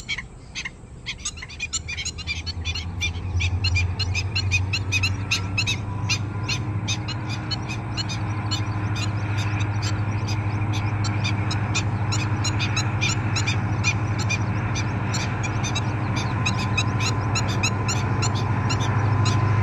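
Distant diesel locomotive hauling a train: a low steady engine drone with a faint whine above it, growing louder from about two seconds in. Over it, a bird calls in rapid, sharp notes, about four a second.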